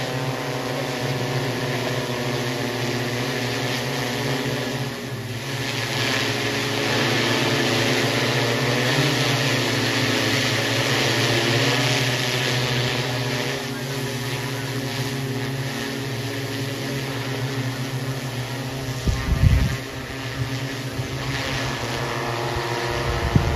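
Six-rotor agricultural spray drone flying overhead: a steady hum of its propellers with a hiss above it, louder in the middle. A brief low thump about three-quarters of the way in.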